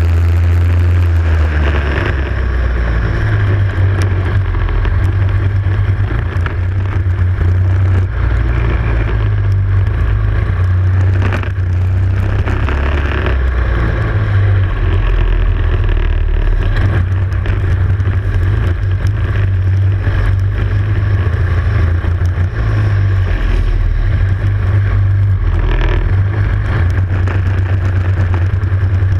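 Racing kart's engine heard from an onboard camera, running hard through a lap, its pitch rising and falling as the driver accelerates and lifts.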